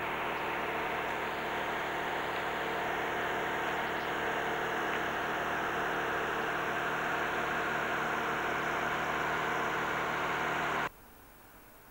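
An engine running steadily, a constant hum under a broad hiss, which cuts off abruptly near the end.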